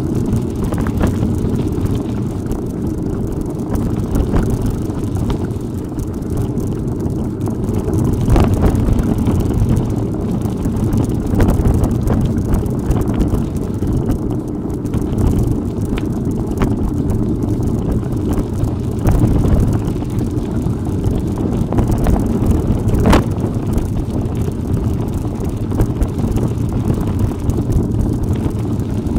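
Wind buffeting the microphone of a camera on a bicycle ridden off-road, with scattered sharp knocks and rattles from the bike going over rough ground.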